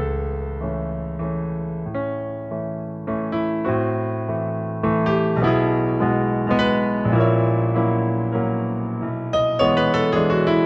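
Solo piano playing ballet class accompaniment: chords and melody struck at a steady, even pulse, each note fading after it is struck.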